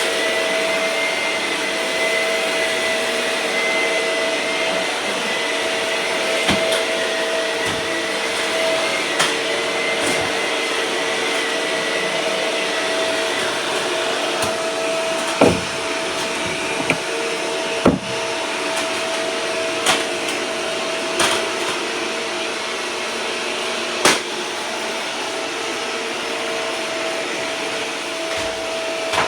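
Vacuum cleaner running steadily, its motor giving a constant whine over the rush of air. From about halfway through, half a dozen sharp knocks sound a second or two apart.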